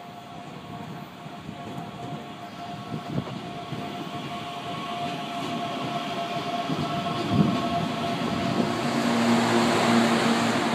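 CPTM Series 8500 electric multiple unit pulling in alongside the platform, its running noise growing steadily louder as it draws close. A steady electric whine sounds over the rumble, dropping to a lower tone near the end as the cars pass.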